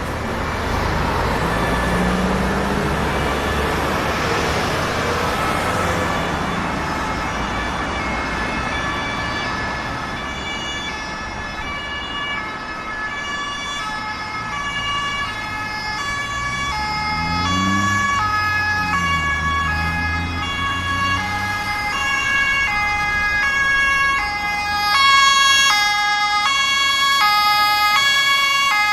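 German ambulance two-tone siren, alternating high and low notes, growing louder as it approaches over street traffic noise. A vehicle engine rises in pitch partway through.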